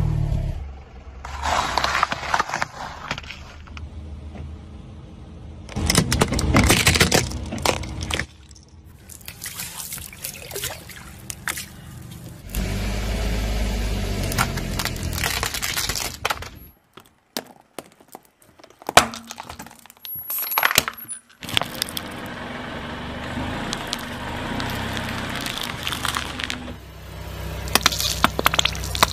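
A car tyre rolls slowly over a succession of objects, including crisp pastries, a computer keyboard and plastic paint tubes, crushing each with bursts of sharp crackling and cracking. A low car-engine rumble comes and goes, with short gaps between the crushes.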